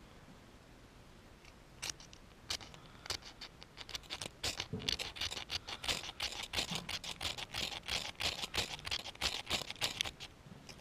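A small flint-and-magnesium fire-starter rod scraped with its steel striker into a dry-grass tinder bundle to throw sparks. There are a few single scrapes, then a quick run of rasping strokes, several a second, for about six seconds.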